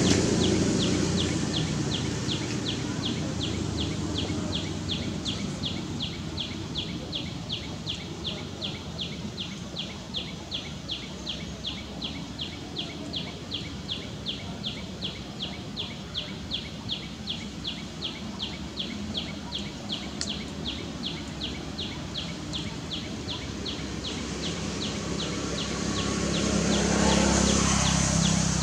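Rapid, regular high-pitched chirping repeating about three times a second without a break. A low vehicle rumble fades out at the start and swells again near the end.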